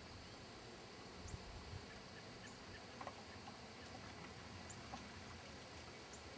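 Quiet outdoor background hiss with a few faint, short animal calls: one about a second in, one around three seconds and one near five seconds.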